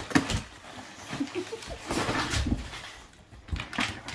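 Wrapping paper rustling and a few short knocks as a boxer dog noses into an opened present's cardboard box.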